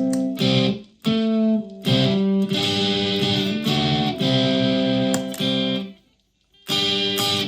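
Solid-body electric ukulele strummed in chords through a clone of the Rift EL34 amp-style pedal. The chords ring out bright and full of overtones, with a short break about six seconds in before the next chord.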